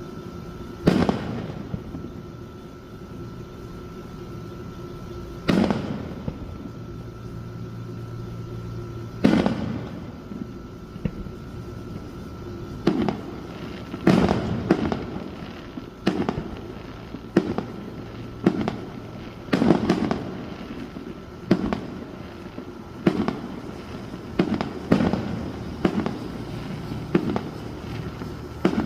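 Fireworks display: aerial shells bursting one after another as sharp booms. There are three widely spaced bursts in the first ten seconds, then they come faster, about one a second.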